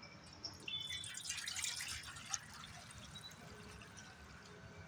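Water splashing and dripping in a bowl, busiest for the first couple of seconds and then fainter.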